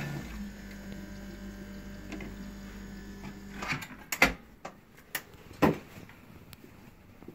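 Water running at a sink tap, shutting off a little under four seconds in, then a few sharp knocks and clicks of hard plastic.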